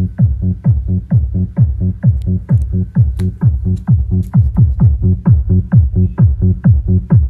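A Crown SW 103M subwoofer driver in a ported box tuned to about 60 Hz plays electronic dance music fed through a 120 Hz sub-out. The music is a steady kick about twice a second, each thump dropping in pitch, over a sustained bass line.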